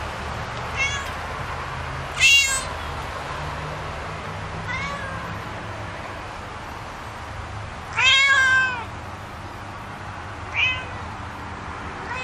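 A domestic cat meowing repeatedly: about five meows, the loudest a high one about two seconds in and a longer one about eight seconds in. A steady hiss runs underneath.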